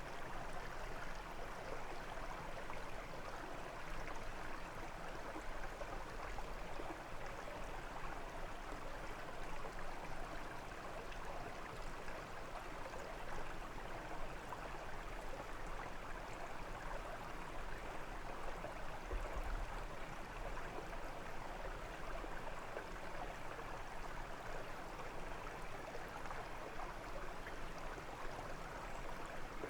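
A brook flowing and babbling over stones, a steady rushing water sound.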